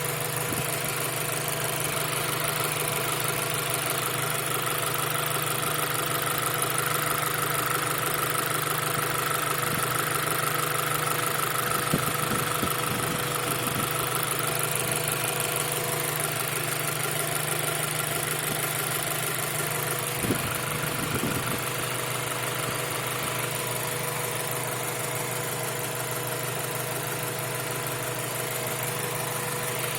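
1.8-litre DOHC VTEC four-cylinder engine of a 2000 Acura Integra GSR, running steadily with a ticking noise. The engine was recently rebuilt, and the owner suspects ticking valves that need adjustment.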